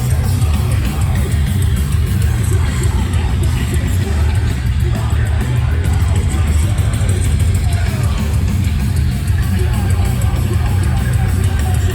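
Live heavy metal band playing loudly, with distorted guitars and a heavy, booming low end.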